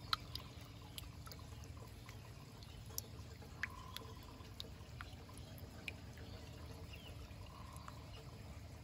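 Water trickling from a pipe into a brim-full aquaponics sump tank, with a handful of sharper drips scattered through it.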